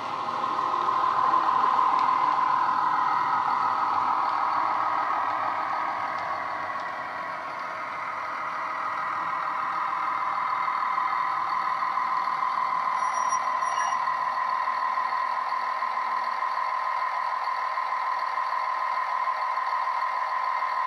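Digitally sampled Class 170 Turbostar diesel engine sound from a model train's DCC sound decoder, played through small speakers as the model runs in and slows. The engine note is loudest at first, eases back about seven seconds in, then runs steadily, with a brief faint high double tone around the middle.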